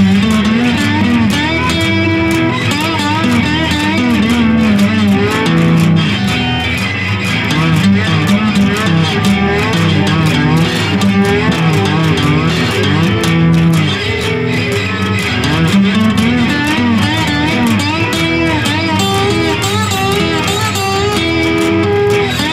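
Instrumental break in a stoner-folk rock song: guitars and bass playing, with a lead line of wavering, bent notes.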